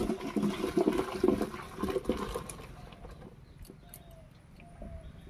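Hot cooking water and boiled jackfruit and potato pieces poured into a steel colander, splashing and draining. The splashing dies down about three seconds in, leaving a few light clinks.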